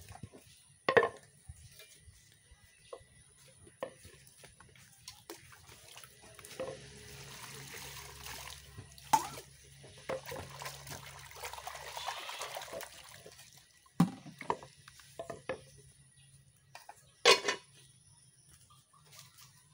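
Water running and splashing for about six seconds midway, with a few sharp knocks scattered around it.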